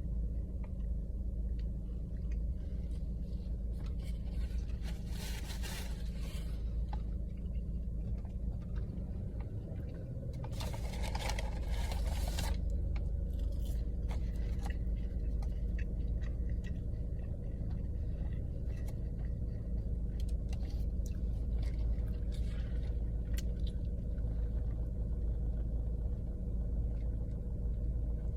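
Steady low hum of a car engine idling, with chewing and a few scratchy rustles or scrapes: a long one around ten to twelve seconds in.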